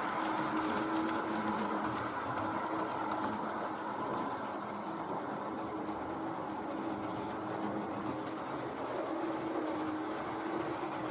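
H0-scale model train running on the layout: the small electric motor gives a steady hum, with a light rattle of wheels on the track.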